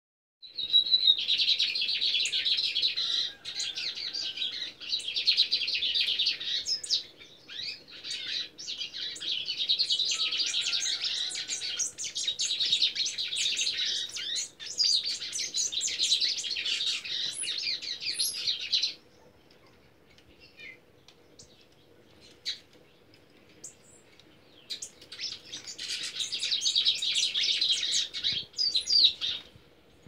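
Caged lined seedeaters (bigodinhos) singing: long runs of fast, high twittering song that break off about two-thirds of the way through and come back for a few seconds near the end.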